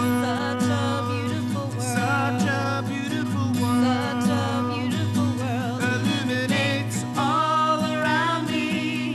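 A song: a voice singing wavering, held notes over acoustic guitar and a steady bass line.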